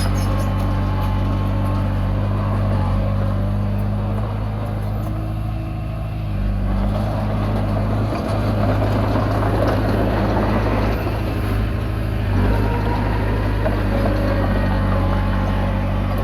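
Komatsu D20P bulldozer's diesel engine running steadily. From about seven to twelve seconds in the sound grows rougher and noisier, then settles again.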